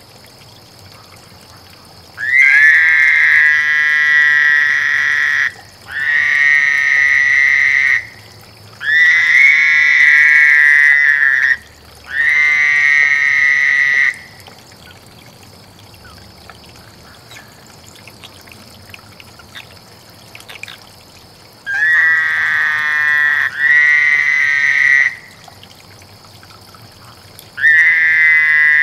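Male toads' breeding trills: about seven long, buzzing trills, each two to three seconds and held on one pitch, with a pause of several seconds in the middle.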